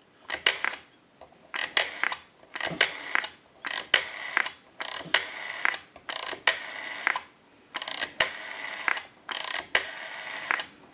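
Rotary dial of an AT&T 323 candlestick telephone being pulled round to the finger stop and whirring back, one digit after another, with short pauses between. The spring return sends the clicking dial pulses that the line analyzer reads as digits.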